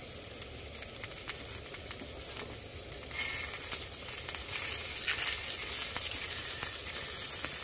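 Food sizzling on a hot grill fed by a butane canister, with many small pops, getting louder about three seconds in.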